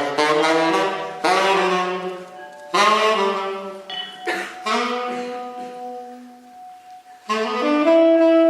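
Improvised music on wind instruments, saxophone-like, playing phrases of several overlapping notes that start sharply and fade, with long held tones in the second half.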